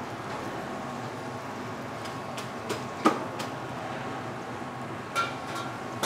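Battered tempeh slices sizzling in hot oil in a wok as they are dropped in one after another, over a steady hum. Several sharp knocks cut through, the loudest about three seconds in and another about five seconds in.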